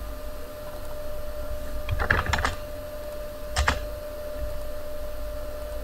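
Computer keyboard keystrokes: a quick cluster of clicks about two seconds in and another keystroke about a second and a half later, over a steady electrical hum.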